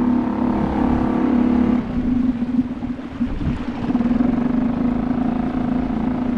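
A boat motor running with a steady hum, its pitch shifting slightly about two seconds in.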